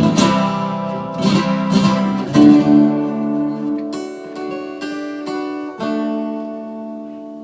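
Acoustic guitar playing the song's closing chords and a few picked notes. A last chord comes about six seconds in and is left to ring, fading away.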